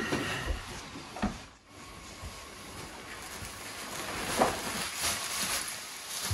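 Rustling of clothing and a backpack being lifted and pulled on, with a couple of light knocks.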